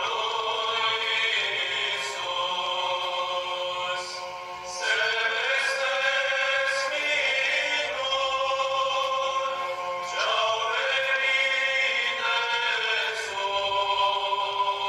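Background music with sung voices holding long notes, moving to new phrases every few seconds.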